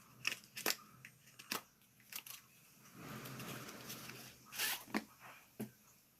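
Mouse-pad packaging being handled and opened: scattered sharp clicks and crinkles, a second-long stretch of rustling about three seconds in, and a louder crinkle just after four and a half seconds.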